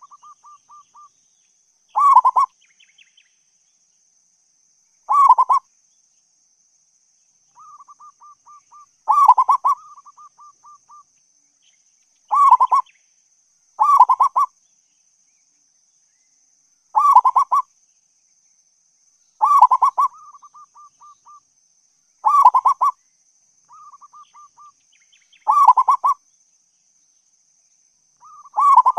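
Zebra dove (perkutut) cooing: about ten short, bubbling phrases of quick notes, one every two to three seconds, with softer runs of rapid stuttering notes between some of them.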